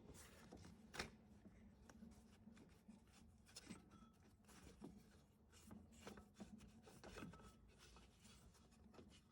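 Faint rubbing and light knocks as a ribbed drive belt is worked by hand onto an engine's pulleys, with one sharper knock about a second in, over a faint steady low hum.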